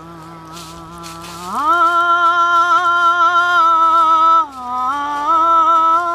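A woman's voice holding long sung notes without words, stepping up in pitch about one and a half seconds in, dipping briefly after the middle, then holding steady again.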